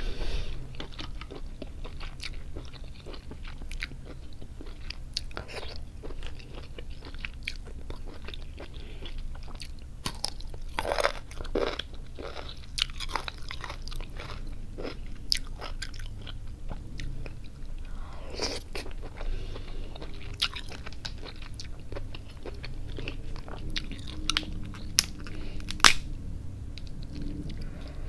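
Close-up eating sounds of cooked crab: irregular sharp cracks and clicks of shell being broken and picked apart by hand, with chewing. One crack near the end is the loudest.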